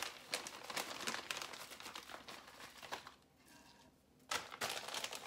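Plastic bag of shredded cheese crinkling as handfuls are pulled out of it. The crinkling pauses for about a second a little past halfway, then starts again.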